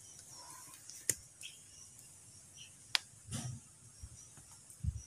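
Faint handling sounds as a plastic hanging basket of coleus is lifted off a plastic crate: two sharp clicks and a few soft thumps, over a steady faint high hiss.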